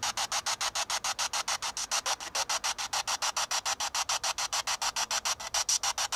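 Spirit box radio scanner sweeping through stations: rapid, even bursts of radio static, about ten a second, with no voice coming through.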